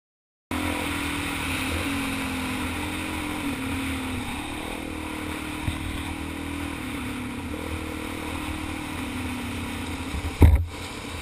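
Dual-sport motorcycle engine running steadily while riding a dirt trail, heard from a camera mounted on the bike, with wind and trail rumble. A single loud thump near the end.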